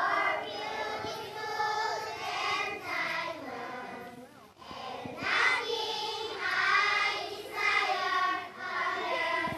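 A group of young children singing a prayer song together in unison, in sung phrases with a brief pause about halfway through.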